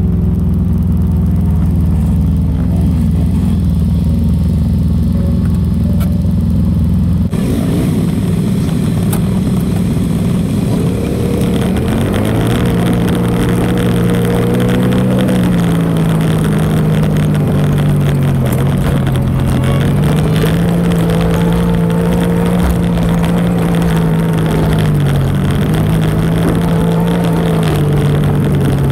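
ATV engine running while the quad is ridden, its pitch rising and falling with the throttle, and a rushing noise joining about seven seconds in.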